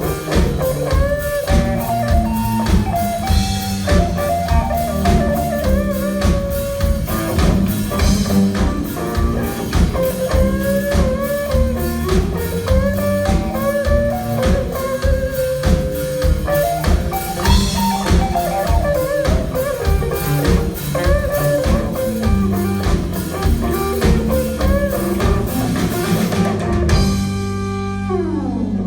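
A rock band playing a song on drum kit and guitar with a steady, busy beat. Near the end the drums drop out and a note slides down in pitch.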